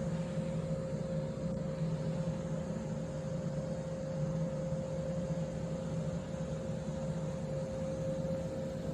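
Gleaner combine running steadily under harvest, a constant drone with a steady whine over it, heard from up in the operator's seat.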